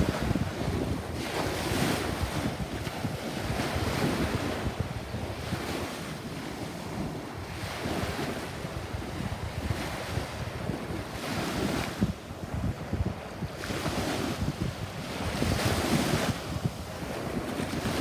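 Small waves breaking and washing up on a sandy beach, the surf rising and falling every few seconds, with wind buffeting the microphone.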